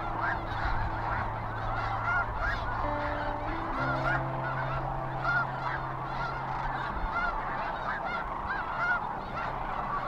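A large flock of sandhill cranes calling at once: a dense chorus of overlapping rolling, trumpeting calls. Soft background music of held low notes runs underneath.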